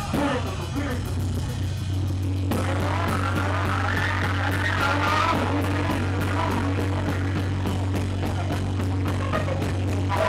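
Live noise rock from a bass-and-drums duo: a loud, steady low bass drone under fast, dense drumming. About two and a half seconds in the sound fills out with a higher, distorted line that rises and then falls back.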